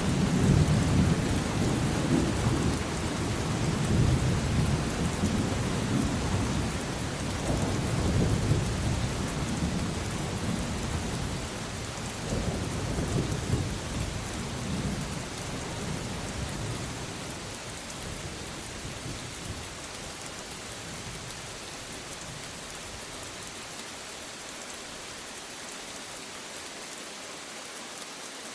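Steady rain with a long rolling rumble of thunder that is loudest in the first few seconds and dies away over about the first two-thirds, leaving only the rain.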